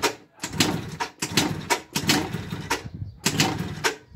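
Two-stroke MBK Ovetto scooter engine being kicked over again and again, about six short bursts of cranking that do not catch. The scooter has not been started in a long time.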